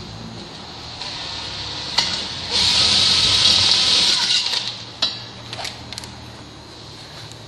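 Cordless drill with a 1/4-inch bit cutting into the steel barricade bar and elbow for about two seconds, a steady high hiss, followed by a few light clicks and knocks of metal parts.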